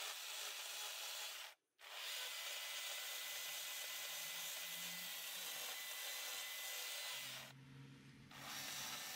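Chainsaw with its bar nose worked back and forth against poplar wood like a sander, heard as a faint, steady hiss. The sound cuts out completely for a moment about a second and a half in, and dips again near the end.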